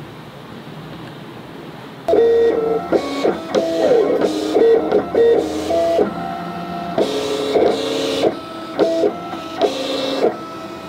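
Vinyl cutting plotter cutting jersey name-and-number lettering from heat-transfer film. Its motors whine in steady tones that jump from pitch to pitch as the blade head moves, starting about two seconds in after a low hum.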